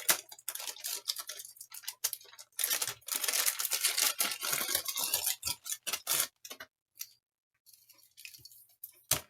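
Plastic packaging crinkling and rustling with small clicks and knocks as multimeter test leads and probe clips are unwrapped and handled. The crinkling is densest in the middle and stops briefly about seven seconds in.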